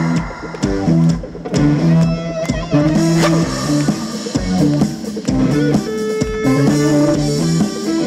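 Instrumental break of an upbeat pop song played from a backing track: an electric guitar melody over bass and a drum kit keeping a steady beat.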